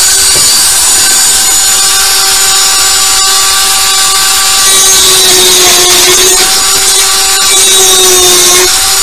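Dremel rotary tool with a high-speed cutter bit running at a steady whine while cutting a slot into a PVC fitting; the pitch sags briefly a couple of times as the bit bites into the plastic.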